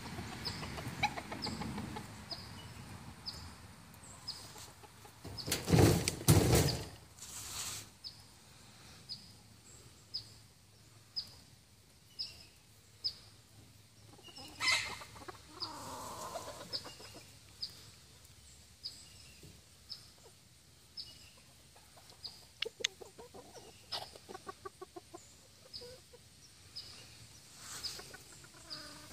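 Game fowl roosters clucking in short bursts, with a loud rustle about six seconds in. A faint high tick repeats steadily about every two-thirds of a second.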